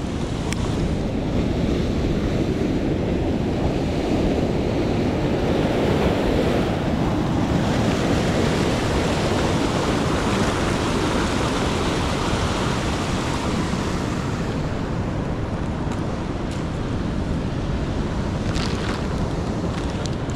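Ocean surf breaking and washing over rocks: a steady rush of seawater.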